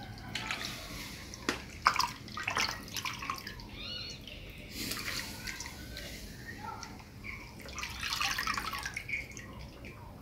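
Water dripping and splashing in irregular bursts as wet pieces of beef tripe are lifted by hand from a bowl of lime water and dropped into a pot of water.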